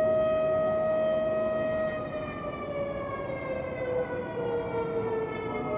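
Imsak siren, the signal for the start of the day's Ramadan fast. It sounds one steady held wail, and about two seconds in the pitch begins sliding slowly downward.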